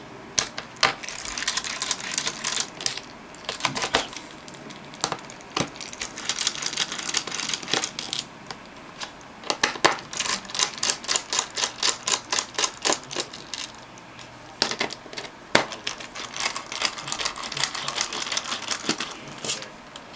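Small T8 Torx screwdriver working the screws out of an HP TC1100 tablet PC's casing: scattered sharp clicks and ticks of metal on metal and plastic, with quicker runs of clicking about halfway through and again near the end.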